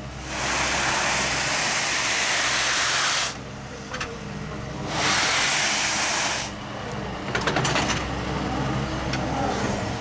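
Excavator-mounted push broom's bristles dragging across a dusty yard: a loud scraping hiss in two sweeps, the first about three seconds long and the second about a second and a half, over the steady hum of the excavator's engine. Clicks and rattles follow as the broom comes up.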